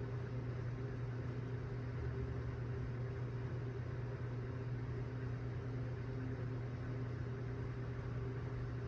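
A steady low hum with an even hiss over it, unchanging throughout, with no burps or other sudden sounds.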